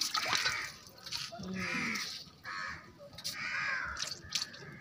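A crow cawing repeatedly: about four harsh caws, each roughly half a second long, with short gaps between them.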